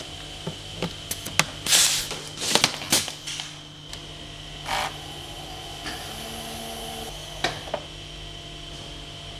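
Handheld power screwdriver driving screws into the metal fittings of an aluminium case in a few short bursts, with sharp clicks and knocks of metal parts, over a steady workshop hum with a high whine.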